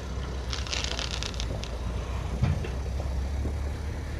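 Fireworks crackling in a short cluster of pops about half a second in, over a steady low rumble, with one dull thump a little past the middle.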